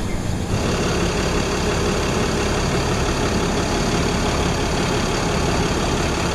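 Shuttle bus engine running steadily at idle, a low drone with a faint steady whine above it, louder from about half a second in.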